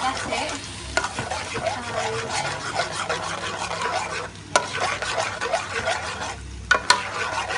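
Slotted spatula stirring a thick curry masala of onions and spices frying in a metal pot, with steady sizzling and a few sharp knocks of the spatula against the pot.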